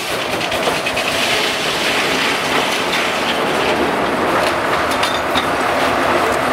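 Steam-powered sawmill running: a steady mechanical noise with scattered sharp clicks and knocks, more of them in the second half.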